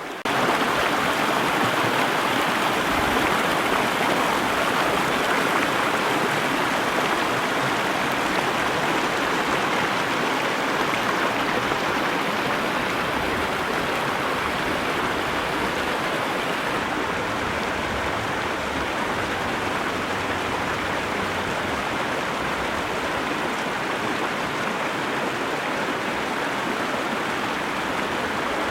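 Stream water rushing steadily, a constant rush that comes in suddenly just after the start.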